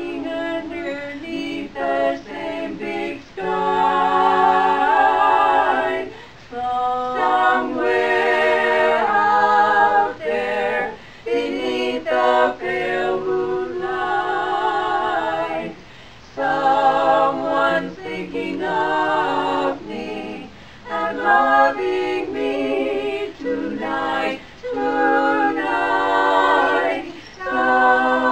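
A quartet of women singing a cappella in harmony, in phrases with vibrato broken by short pauses.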